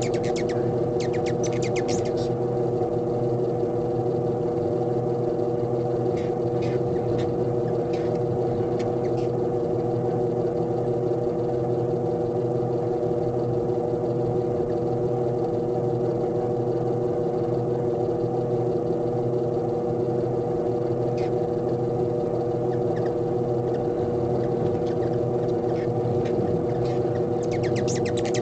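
Steady hum of several constant low-to-mid tones, with scattered bursts of quick, high chips from hummingbirds squabbling at the feeder: at the start, again around six to nine seconds in, once around twenty seconds in, and near the end.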